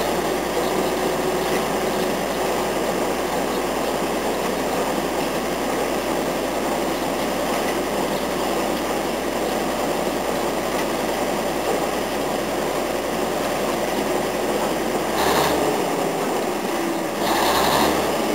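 Engine of a lattice-boom crawler crane running steadily while it holds a narrowboat in its lifting straps, with two brief louder surges near the end.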